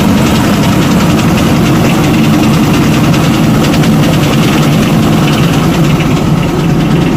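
Diesel engine of a BS6 Ashok Leyland dumper truck idling, loud and steady, with a fast, even clatter over its low running sound: the abnormal engine noise under investigation, which the mechanic says does not come from the injectors.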